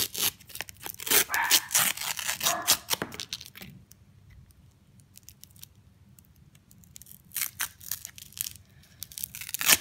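Paper sleeve of a Cornetto ice cream cone being torn and peeled away in many short rips and crinkles. It stops for a few seconds in the middle, then starts again near the end.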